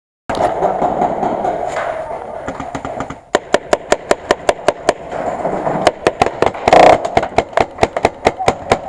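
Paintball markers firing a rapid string of sharp pops, about four or five a second, starting about three seconds in over a steady background noise, with one louder burst near the middle of the string.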